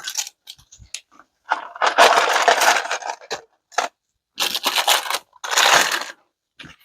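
Stir sticks being pulled out of and scraped against plastic resin mixing cups, with light clicks and knocks as cups and sticks are handled, and three longer scraping spells from about a second and a half in.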